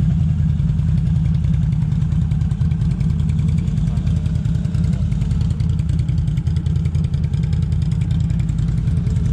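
ATV engine running steadily at a fairly even speed, a dense low pulsing with no big revs.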